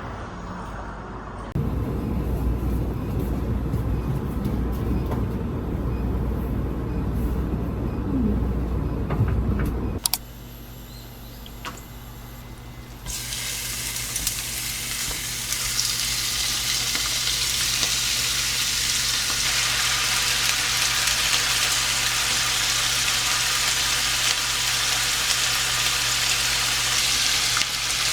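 A low rumble for the first several seconds, then a short quieter stretch with a steady hum, and from about halfway through a steady sizzle of food frying in a pan.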